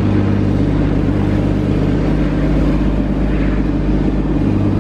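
Porsche GT4 Clubsport race car's engine running at a steady idle, loud and close.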